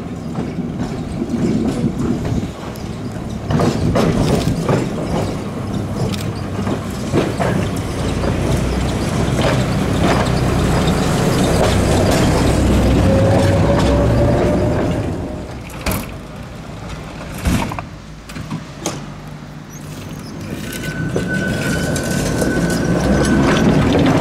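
KTM-5 (71-605) tram passing close on worn, uneven track: wheels rumbling and knocking over the rails, with a faint rising motor whine as it goes by, loudest about halfway through. After a lull with scattered clicks, tram running noise builds again, with a steady high tone near the end.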